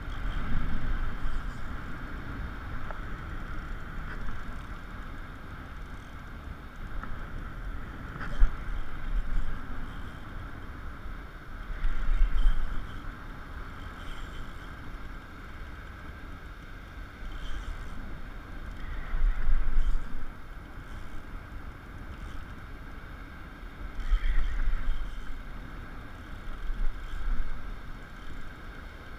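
Wind buffeting the microphone, low rumbling surges every four to six seconds over a steady rushing background, with one sharp knock about eight seconds in.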